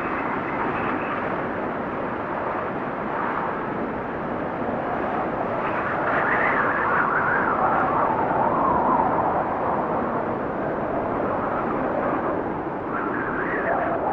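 Steady wind blowing in gusts, with a hollow whistling tone that swells and wavers in pitch about six seconds in and again near the end.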